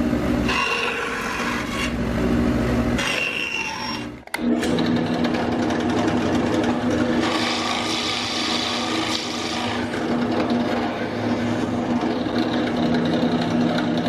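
Bandsaw running and cutting plywood for about four seconds, then stopping abruptly. A drill press then runs steadily with a large bit boring through a small plywood block.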